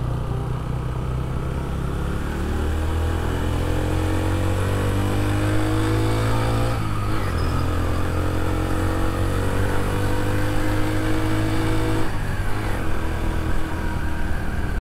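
Yamaha 125 motorcycle's single-cylinder four-stroke engine pulling hard, its pitch climbing as it accelerates. The climb is broken by gear changes about seven and twelve seconds in, after which it runs steadier.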